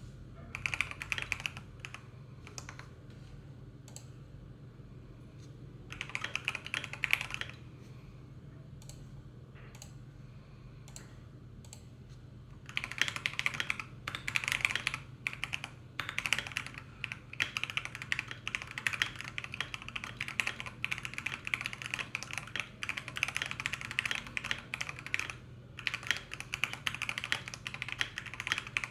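Typing on a Feker 84T mechanical keyboard with Akko Jelly White switches lubed with Krytox 205g0, a steel plate and Akko ASA-profile keycaps, its case dampened with rubber. Short bursts of keystrokes and a few single key presses at first, then fast continuous typing from about halfway, with a short pause near the end.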